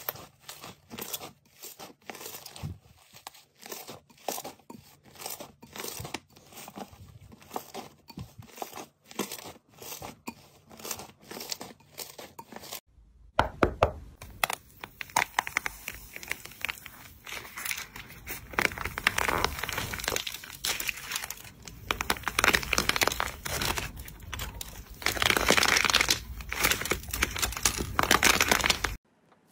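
Glossy gold slime being stretched and squeezed by hand in a bowl, with sticky pops and tears about twice a second. About halfway through, the sound changes to a dried blue clay crust being cracked and crushed in the hands: a dense crackling crunch that grows louder toward the end.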